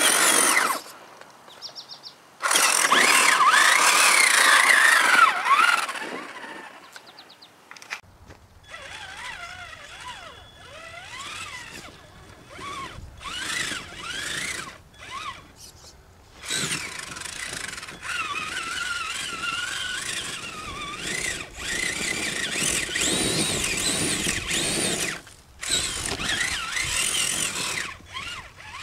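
Traxxas Summit RC truck's brushed 775 electric motor and geared drivetrain whining in bursts, the pitch rising and falling with the throttle as the truck works up a steep dirt slope. There are short pauses between bursts, and the whine is loudest near the start and again in the second half.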